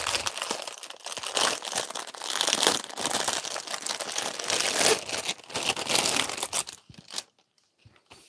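Clear plastic packaging crinkling and rustling as a bag is unwrapped from its plastic sleeve, stopping about seven seconds in.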